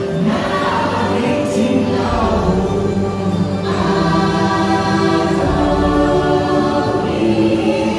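Choral music: a choir singing long, held notes in several parts, the soundtrack of a theme-park boat ride.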